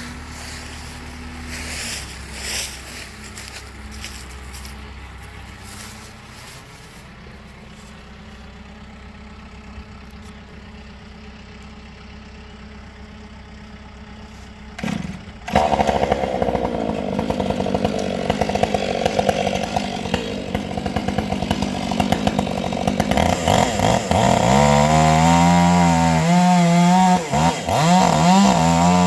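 Chainsaw running quietly at idle, then a knock about fifteen seconds in, after which it is revved up loud and cuts into a rotten, hollow tree trunk. Near the end its pitch rises and falls repeatedly as the chain bogs and frees in the cut.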